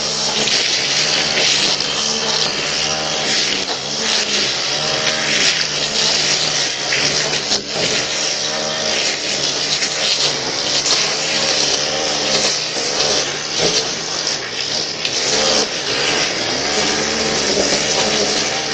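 Two-stroke line trimmer running, its engine revving up and dropping back again and again, about once a second, as it cuts grass, picked up by a Ring security camera's microphone.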